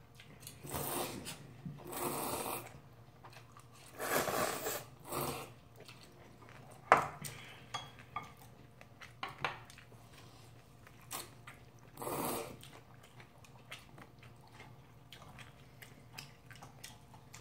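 Instant ramyun noodles being slurped off chopsticks in about five short loud slurps, with chewing and small clicks of chopsticks between them. A single sharp clack about seven seconds in is the loudest sound.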